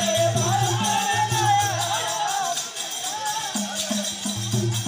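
Gavri folk music: a drum keeping a steady beat, a jingling rattle, and a bending melodic line over them.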